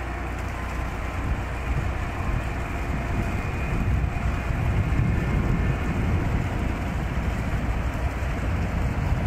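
Freight train rumbling past, growing louder about a second and a half in.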